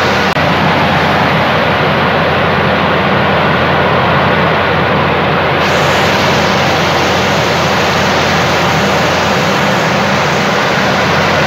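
Steady, loud rushing noise of turbulent water splashing and churning on a puddle.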